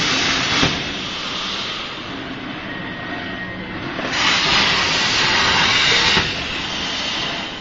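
CNC plasma cutter torch hissing in two bursts: one stops less than a second in, and another runs from about four to six seconds in. A steadier machine noise continues between them.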